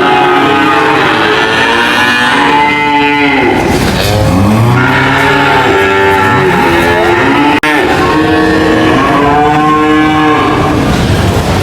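Cows mooing: long, loud moos following one another, at times overlapping, with a sudden brief break about two-thirds of the way through.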